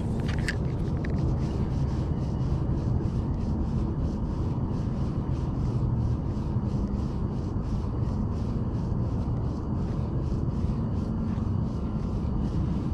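Wind rumbling steadily on an action-camera microphone, with a faint, fast, even ticking running through it.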